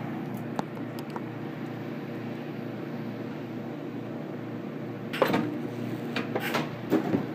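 Steady drone of factory machinery with a few light clicks early on, then three short, sharp bursts of noise in the second half from metal parts being welded together.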